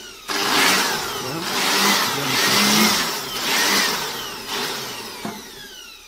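Handheld electric air blower running, a loud rush of air that swells and eases in waves.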